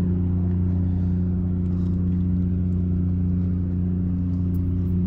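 An engine running steadily at constant speed, a low even hum that does not rise or fall.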